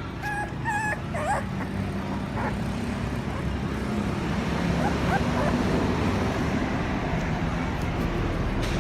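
Puppy crying: a few high whimpering cries in the first second and a half, then fainter short whines, over a steady low rumbling background noise.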